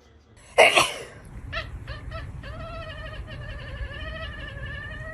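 A pet's long, drawn-out yowl or howl, held on one pitch with a slight waver. It follows a loud, sharp burst about half a second in and a few short calls.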